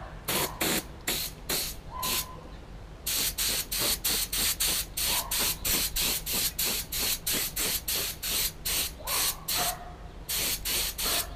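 Paint spray gun laying single-stage acrylic enamel onto brake booster parts in short hissing bursts. A few bursts, a break about two seconds in, then a quick run of about three a second, with a brief pause near the end.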